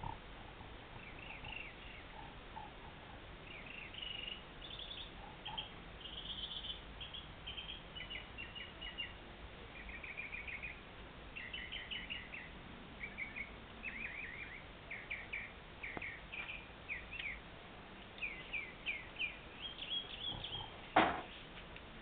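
Small bird chirping: short high notes in quick clusters of three to six, repeated again and again. A single sharp knock near the end.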